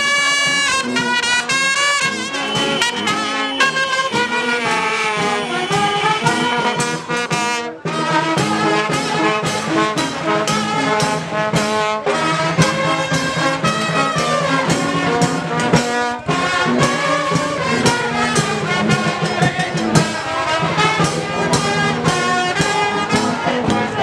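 A brass marching band, trumpets and a sousaphone among them, playing a lively tune with sharp percussive strokes throughout.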